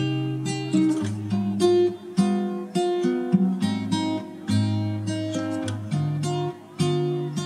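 Background music of an acoustic guitar strumming and picking chords in a steady rhythm.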